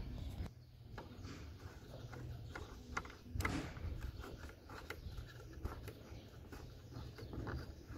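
Small clicks and knocks of fingers handling the bolts and plastic parts around a car headlight, with a louder knock about three and a half seconds in, over a steady low rumble.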